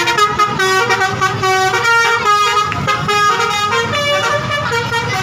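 Multi-tone "telolet" horns of an Indonesian bus playing a tune: several horn notes sounding together and stepping quickly from pitch to pitch, over a low rumble.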